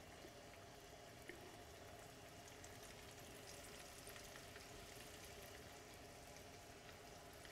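Faint, steady sizzle of flour-dredged chicken tenders frying in olive oil and butter, with scattered tiny pops.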